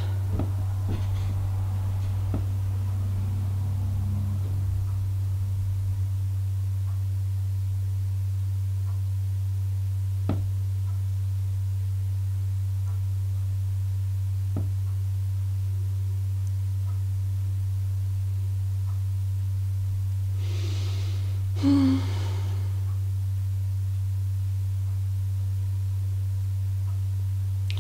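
A steady low hum throughout, with a few faint clicks. About three-quarters of the way through, a woman takes two audible breaths, the second a sigh.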